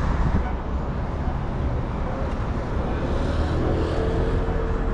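City street traffic noise: a steady rumble of passing vehicles, with a faint steady tone joining in near the end.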